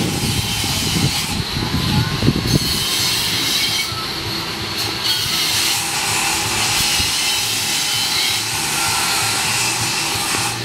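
Train running on the rails: a steady rumble and hiss of wheels on track, with faint high-pitched squealing tones.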